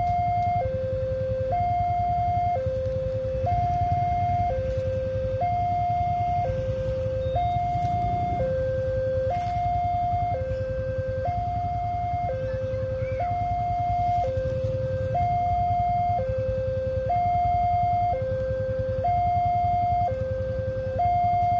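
Indonesian railway level-crossing warning alarm sounding while the barriers are down: a two-tone siren alternating evenly between a higher and a lower note, each held about a second. A steady low rumble runs underneath.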